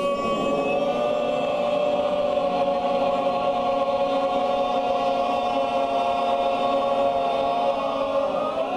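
Men's barbershop chorus singing one long, steady tone together as a breath-support warm-up exercise, held for about eight seconds and breaking off near the end.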